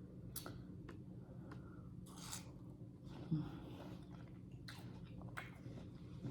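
Close-up chewing of juicy watermelon: soft wet smacks and small clicks of the mouth, with a short hummed "mm" a little over three seconds in.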